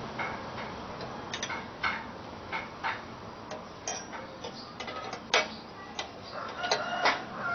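About fifteen irregular light clicks and taps, as of small hard parts knocking together while being handled, with a brief thin squeak near the end.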